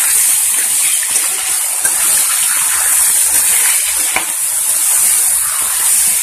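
Mutton liver pieces frying in hot oil in a kadhai: a loud, steady sizzling hiss with a few sharp pops of spattering oil.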